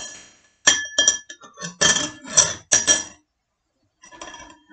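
A metal utensil clinking against a glass bowl and dishes while melon pieces are handled: a quick run of bright, ringing clinks, a short pause, then a few more near the end.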